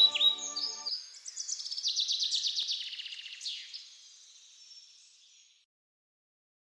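Songbird chirping and trilling in quick repeated notes, fading away over several seconds. The last held chord of the music stops about a second in.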